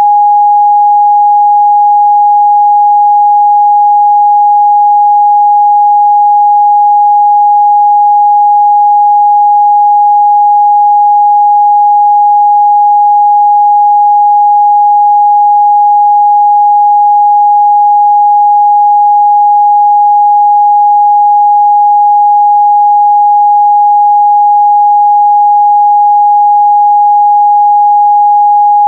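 A steady, loud pure sine tone at 826 Hz, held without change: an electronic test tone for checking the midrange response of speakers and headphones.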